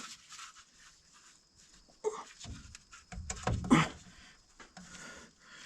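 A man grunting and breathing hard with effort: a short grunt about two seconds in, then a longer, louder strained one around three to four seconds in.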